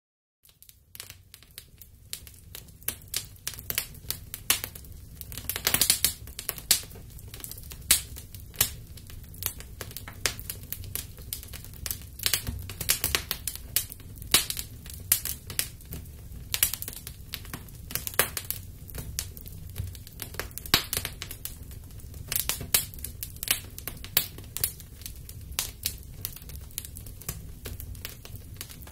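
Small open fire crackling, with irregular sharp pops and snaps over a low steady rumble.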